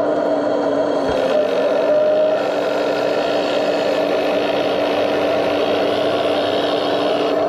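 1:14-scale RC hydraulic excavator running, a steady mechanical hum of its drive and hydraulics as the boom dumps a bucket and swings. The pitch shifts slightly about two seconds in.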